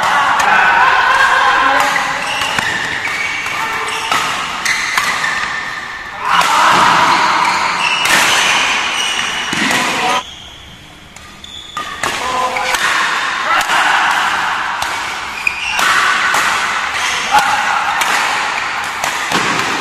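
Repeated sharp racket strikes on a badminton shuttlecock and players' footfalls during a doubles rally, over people's voices and shouts. The voices drop away briefly about halfway through.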